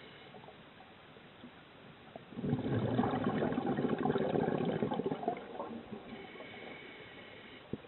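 Scuba regulator exhaust: a burst of exhaled air bubbles gurgling past the underwater camera for about three seconds from a couple of seconds in, followed near the end by a faint whistling inhalation through the regulator.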